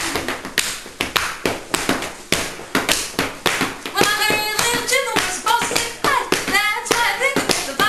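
Hand percussion: palms slapping and clapping in a quick, steady rhythm, with a voice over it from about halfway through.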